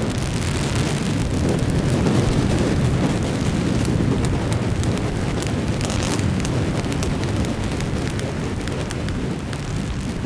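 Designed cinematic sound effect: a loud, dense rumbling texture with a steady spray of fine crackles, dying away near the end.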